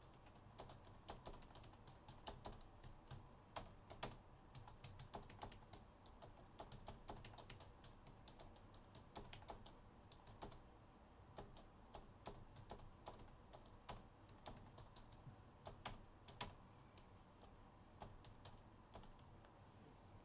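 Faint typing on a computer keyboard: irregular keystroke clicks, a few a second, with short pauses.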